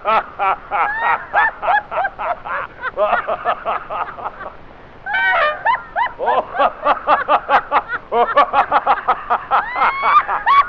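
People laughing hard in rapid ha-ha-ha bursts on an early Edison phonograph recording, with a short lull about four and a half seconds in before the laughter picks up again.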